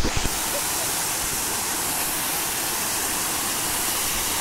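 Small waterfall rushing steadily as water pours over a wide rock ledge into a pool. A few brief low thumps right at the start.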